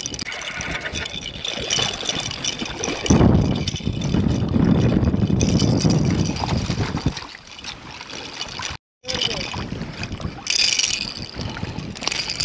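Water splashing and dripping as a landing net is dipped and swung through shallow saltwater to land a small trout. There is a stretch of low rumbling on the microphone in the middle.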